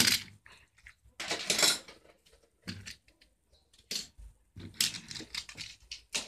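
Small die-cast toy cars clicking and clattering as they are handled and set down on a concrete windowsill: a sharp click at the start, then a few short clicks and brief scraping clatters with quiet gaps between.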